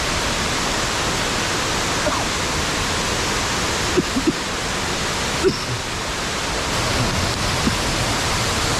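Thi Lor Su waterfall's falling water: a steady, even rushing noise that fills the whole range from low to high.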